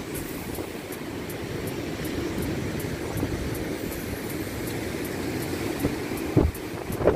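Rough sea surf washing and breaking against a stone seawall, a steady rushing noise, with wind buffeting the microphone. Two sharper thumps come near the end.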